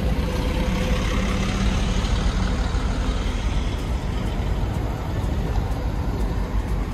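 Motor vehicle engine running with a steady low rumble and road noise.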